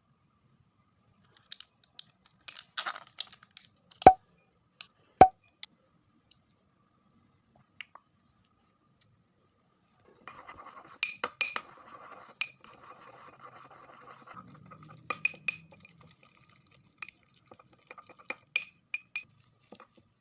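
Brittle glassy objects being crushed: scattered small cracks, two sharp ringing clinks about four and five seconds in, then about halfway through a run of crackling and crunching with repeated bright glassy clinks.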